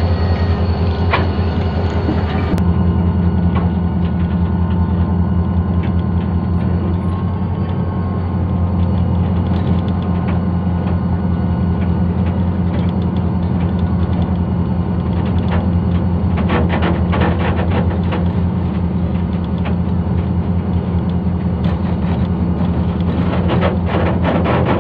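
Diesel locomotive of a Pakistan Railways goods train running steadily under way, a loud, even engine hum heard from its footplate, with stretches of rapid clicking and rattling from the moving train about two-thirds of the way in and near the end.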